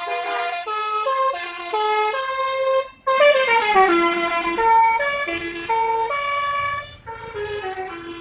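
Bus basuri horn playing a tune: a quick run of separate pitched notes in phrases with short breaks between them, one phrase opening with a downward slide.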